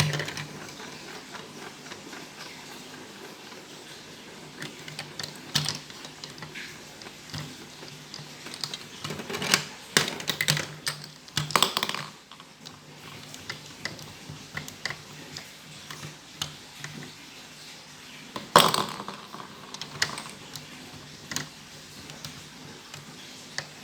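Plastic marble run toy clicking and clattering as marbles run and it is handled, in irregular bursts with the loudest clatter around the middle and again later, over a faint steady hum.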